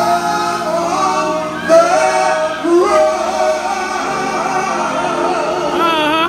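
A man singing live into a microphone over band accompaniment, ending on a held note with a strong vibrato.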